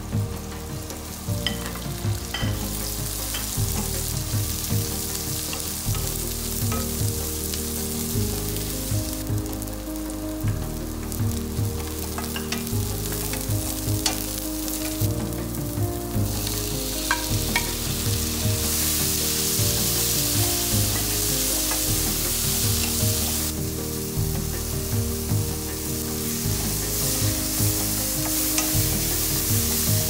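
Sliced onion sizzling in hot oil in a non-stick pan while it is stirred with a wooden spoon, with short scrapes of the spoon against the pan. The sizzling grows louder about halfway through, once chopped tomatoes are in the pan.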